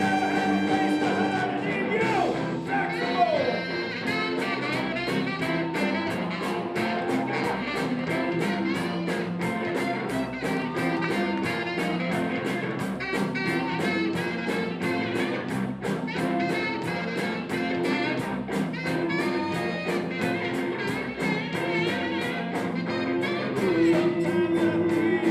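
Live rhythm-and-blues band playing, with horns and guitar over a steady drum beat.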